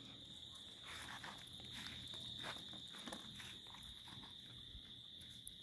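Insects chirring in one steady, high, continuous note, with faint scattered clicks and rustles.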